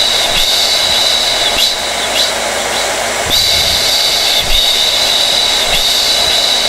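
Hair dryer running steadily: a loud rush of air with a high motor whine over it. The whine weakens for a second or so about two seconds in, then returns.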